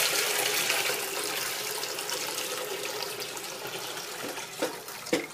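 Water from a dehumidifier's collection bucket pouring into a sink, the rushing stream slowly tapering off as the bucket empties, with a couple of light knocks near the end.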